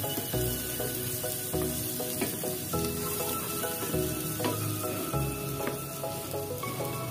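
Onions and garlic sizzling in hot oil in a pot, stirred with a wooden spatula that scrapes and taps now and then, over background music.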